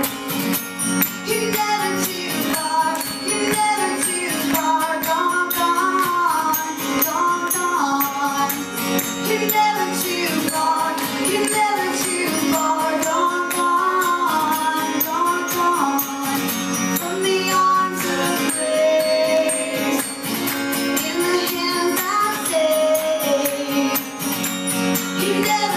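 Live acoustic band music: acoustic guitar playing under a gliding lead melody, with a light shaker-like rattle keeping time.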